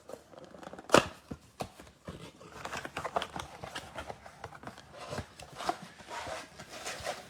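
Football trading card packs and blaster box packaging being handled and opened: crackling plastic wrapper, cardboard and cards rustling, with a sharp snap about a second in.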